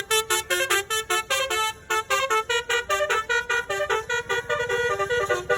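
Indonesian bus's basuri telolet horn playing a fast melody: a quick run of short, clipped notes stepping up and down in pitch, several a second, over a faint low engine hum.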